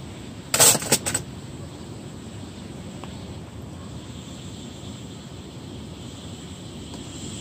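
Portable ceramic infrared gas heater on a butane cartridge being lit: a loud sharp burst followed by a couple of quick clicks about half a second in, then a faint steady hiss of the burner as the ceramic plate heats up.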